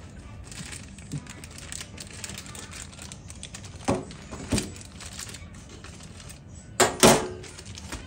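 Clicks, taps and light knocks of objects and packaging being handled, with a louder clatter about seven seconds in.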